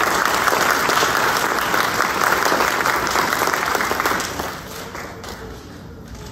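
Audience applauding; the clapping dies away about four seconds in.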